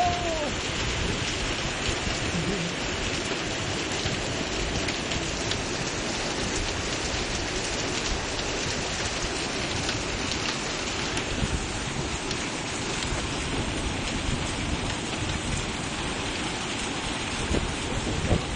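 Heavy rain falling steadily, an even hiss of water on roofs and pavement. A short rising-and-falling tone sounds right at the start.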